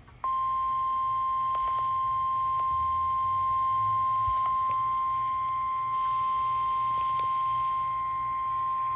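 NOAA Weather Radio warning alarm tone: one steady, single-pitch tone that starts a moment in and holds for about nine seconds. It signals that a weather warning message follows.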